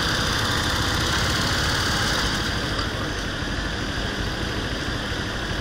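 Small motor scooter engine idling steadily.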